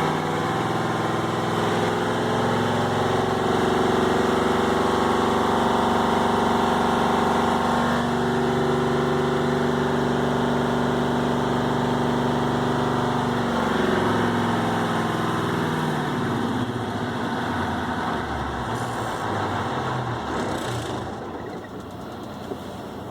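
Cummins VT-903 V8 diesel engine running at steady revs, then about fourteen seconds in the revs fall away and it runs unevenly, dying down near the end. This matches the owner's complaint that the engine shuts off without throttle, which a Cummins tech put down to bad seals in the front of the fuel pump.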